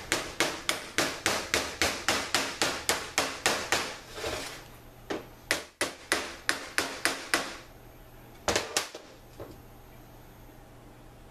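Hammer blows on a metal punch held against a Turbo 400 transmission pump part, in a steady run of about three sharp strikes a second. The blows stop briefly, start again in a second run, and end with two last strikes.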